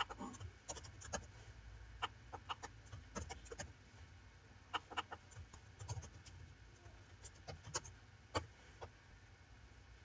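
Computer keyboard typing: short irregular runs of faint key clicks over a steady low hum.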